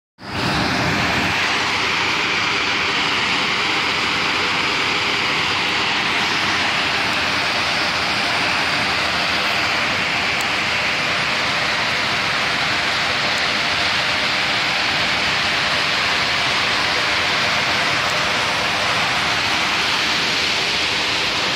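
Whitewater stream cascading down a narrow rock chute: a steady rush of falling, churning water.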